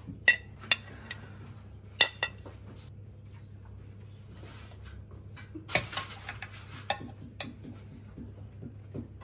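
A metal serving spoon clinks and scrapes against a ceramic plate and a glass roasting dish as roast potatoes and vegetables are spooned onto the plate. A few sharp separate clinks come first, then a quicker run of clinks and scrapes about six seconds in.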